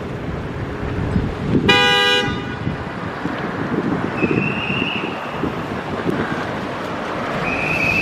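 A car horn honks once, short and loud, over steady city traffic noise. Two brief high-pitched squeaky tones follow later.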